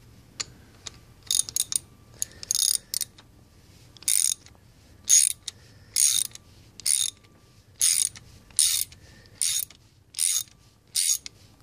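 Hand ratchet wrench clicking in repeated back-strokes, first a few short clicks, then a steady rhythm of a little more than one stroke a second, as a glow plug is run down into a freshly installed thread insert.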